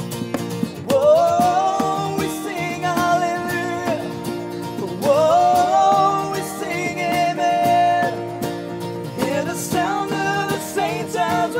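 Acoustic band performance of a worship song: strummed acoustic guitar chords under a voice singing long held notes with no recognisable words, rising into a note about a second in and again about five seconds in, then shorter sung phrases near the end.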